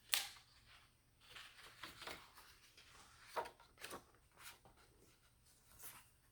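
Faint handling noise: a sharp click at the start, then a scatter of soft short clicks and rustles.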